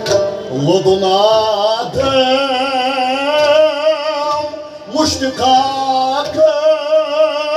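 A man's voice singing Kashmiri Sufiyana music in two long held, melismatic phrases with a wavering vibrato. Accompanying instruments play beneath, and sharp percussion strokes fall at the start of the phrases.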